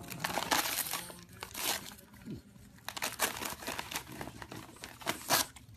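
Wrapping paper crinkling and ripping in irregular bursts as a French bulldog tears at a wrapped gift with its mouth.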